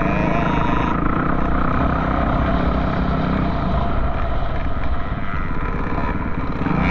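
Off-road vehicle engine running steadily.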